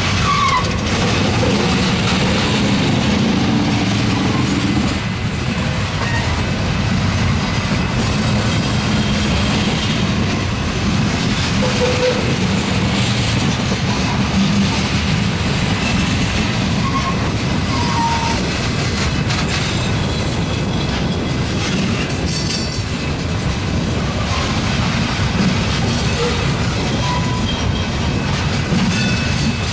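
Loaded coal train's cars rolling past: a steady rumble of steel wheels on rail, with a few brief wheel squeals.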